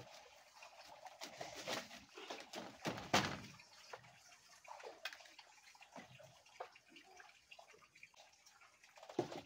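A small knife cutting and scraping the firm, fibrous flesh of elephant apple, in irregular wet, crunchy strokes, with a louder sharp knock about three seconds in.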